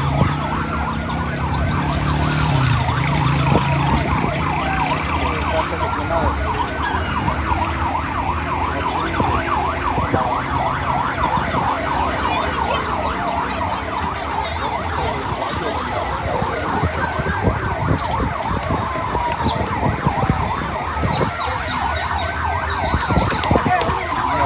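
Emergency vehicle siren wailing, its pitch slowly rising and falling over and over, over the steady noise of motorbikes and traffic.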